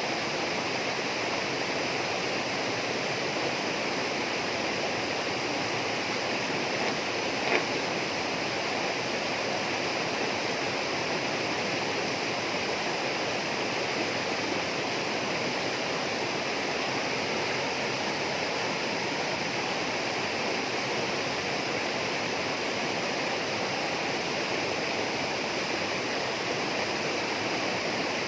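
Steady rushing of flowing water, with a single short click about seven and a half seconds in.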